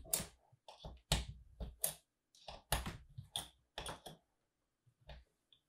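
Small irregular clicks and knocks of hands handling the telescope camera rotator's brass drive wheel and housing: a quick, uneven run of taps that thins out near the end.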